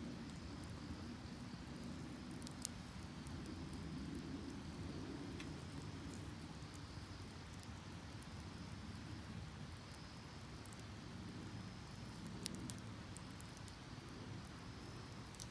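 Wood fire burning in a metal drum, crackling with a few sharp pops, two of them close together near the end, over a steady low rush of river water and a faint insect trill.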